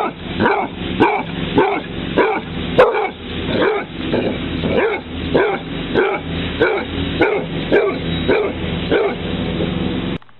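Basset hound barking over and over at a tortoise, about two barks a second, each bark dropping in pitch.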